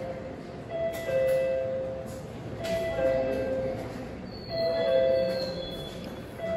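Two-note electronic 'ding-dong' chime, a higher note followed by a lower one, repeating about every two seconds and sounding three times: the guide chime that marks a Japanese station ticket gate for visually impaired passengers.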